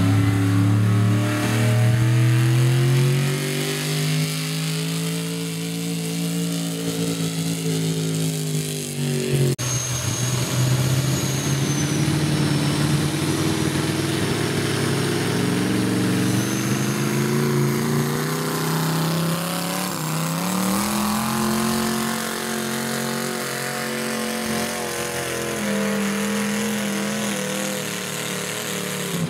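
Pulling tractor's engine running hard under load as it drags a weight-transfer sled down the track, its pitch rising and falling with the revs.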